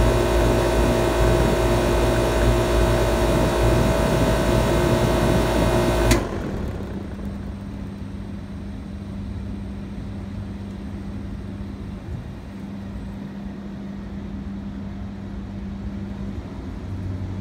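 York LX central air conditioner condensing unit running, its Bristol reciprocating compressor giving a steady hum with several tones. About six seconds in there is a sharp click and the compressor cuts off as the unit is shut down. A quieter steady hum continues while the condenser fan keeps spinning.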